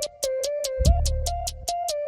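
Background electronic music with a steady beat: fast ticking hi-hats, a deep bass kick about a second in, and a synth melody line.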